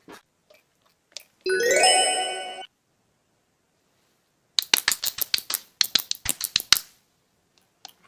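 A short musical chime lasting about a second, its tones gliding upward, then a fast run of sharp clicks or taps, about nine a second, for two seconds.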